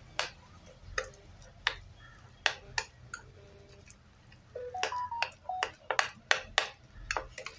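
A spoon clinking and scraping against a bowl while stirring brown sugar into thick chocolate cake batter: a few separate clicks at first, then a quicker run of clicks in the second half, some ringing briefly as a ping.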